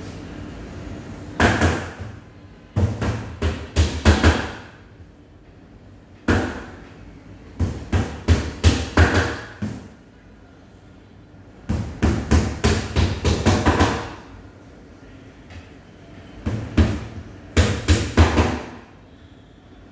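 Hammer tapping small nails into the back panel of an IKEA Billy bookcase laid flat. The blows come in about six runs of several quick strikes each, with short pauses between runs.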